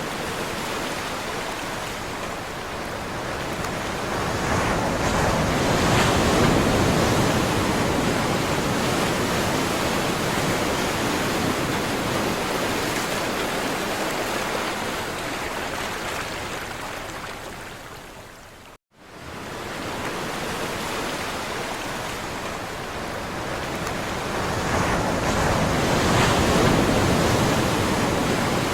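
Sea surf: waves breaking and washing ashore in slow swells that build and ease off over several seconds. The sound cuts out abruptly for an instant about 19 seconds in, then resumes.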